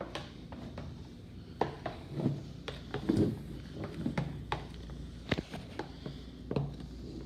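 Utensil stirring a thick mix of glue and shaving cream in a bowl for fluffy slime, with irregular soft clicks and knocks against the bowl.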